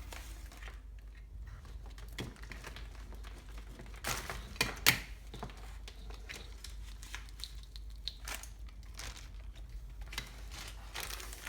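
Packaging crinkling and rustling as wiring-harness parts are handled, with scattered small clicks and a louder crinkle about four to five seconds in.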